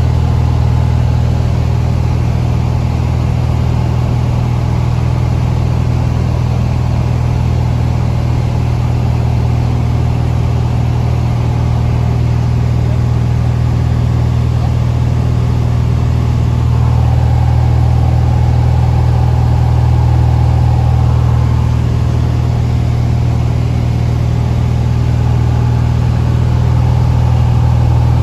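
Cessna light aircraft's piston engine and propeller running at a steady cruise, a loud low drone heard inside the cabin.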